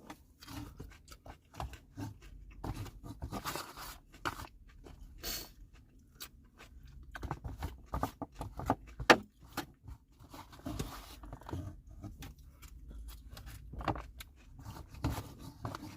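A person eating: irregular crunching and chewing with scattered scrapes and rustles.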